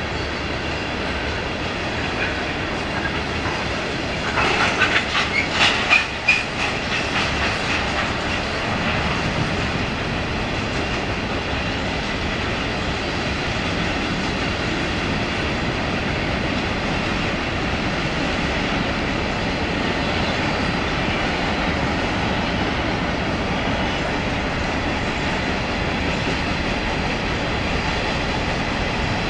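Mixed freight train of covered hoppers and boxcars rolling past: a steady rumble of steel wheels on rail, with a burst of sharp clicks and clanks about four to six seconds in.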